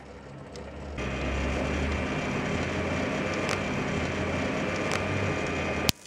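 High-voltage arc from a microwave-oven transformer at about 2,000 volts burning across a small neon indicator lamp: a steady buzzing crackle with mains hum. It starts about a second in and cuts off abruptly just before the end.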